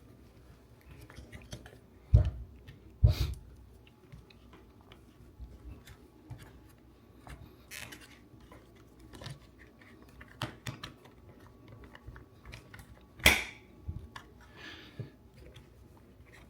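Plastic trim pieces of a stock steering wheel being worked loose by hand: scattered small clicks and rattles, with sharp knocks about two and three seconds in and another near the end.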